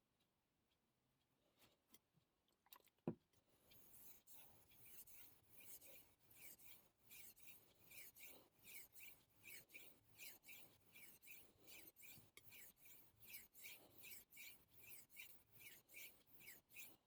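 Damascus steel carving knife stroked back and forth on the 800-grit side of a Naniwa Superstone whetstone: a quiet, rhythmic scraping at about two strokes a second. The strokes begin just after a single sharp click about three seconds in.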